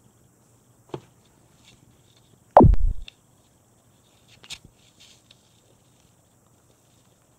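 Camera-handling noise as a cat bites and paws at the dangling camera strap: one loud dull thump about two and a half seconds in, with a few faint clicks and rustles either side.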